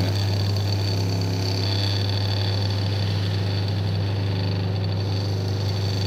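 Samsung top-load washing machine's wash motor, out of the machine and unloaded, running continuously at spin speed with a steady low hum. The repaired control board is now driving it in the spin cycle without stopping, a sign that the board works.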